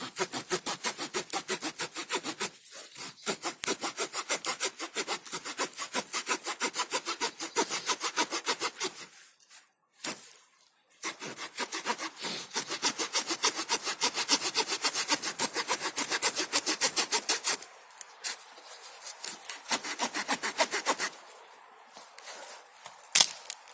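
Saw blade of a Victorinox Rangerwood 55 pocket knife cutting through a wooden stick in quick back-and-forth rasping strokes. It stops briefly about ten seconds in and again shortly after twenty seconds.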